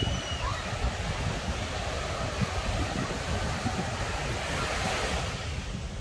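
Ocean surf washing on the beach, with wind buffeting the microphone in low gusts; the wash of a wave swells up about five seconds in. A few faint short chirps sound right at the start.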